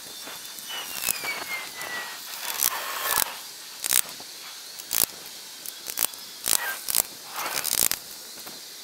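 Welded-wire fencing clinking and rattling as it is shifted and set over a wooden gate frame, a string of sharp, irregular metallic knocks.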